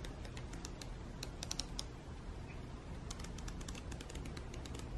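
The pages of a thick photobook being riffled quickly by hand, making quick runs of faint paper flicks and clicks.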